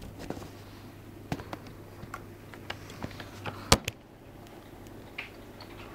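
Scattered light clicks and taps against a plastic tub and a hard tabletop, with one sharp knock about three and a half seconds in.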